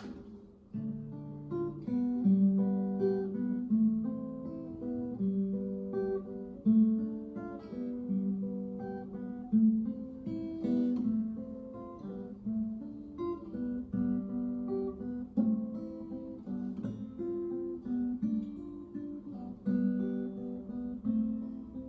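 Acoustic guitar playing an instrumental introduction, a steady run of plucked and strummed chords with a picked melody over them, before the singing begins.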